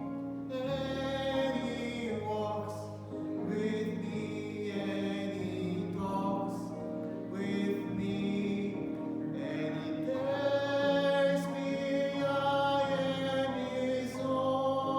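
Voices singing a hymn in long held notes over sustained instrumental accompaniment.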